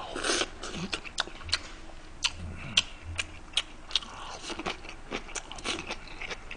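Close-miked chewing and biting into pieces of swimming crab in its shell, with sharp, irregular cracks and clicks about one or two a second.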